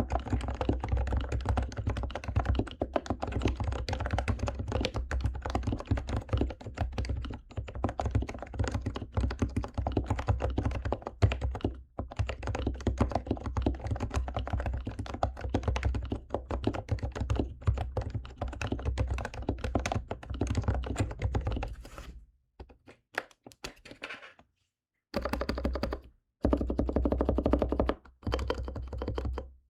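Fast, continuous typing on an HHKB with Topre electro-capacitive switches, fitted with silencing rings and lubed, giving dull thuds. The typing stops about 22 seconds in, then comes back in short bursts near the end.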